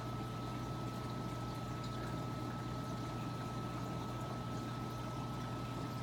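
Reef aquarium running: a steady trickle and bubbling of circulating water with small drips, over a constant low pump hum and a faint steady high tone.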